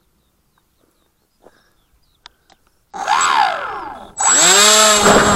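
Electric motor and propeller of an Art-Tech AXN foam plane, heard from its onboard camera. After a few faint clicks, it throttles up about three seconds in, eases back for a moment, then runs hard with a steady high whine as it is hand-launched.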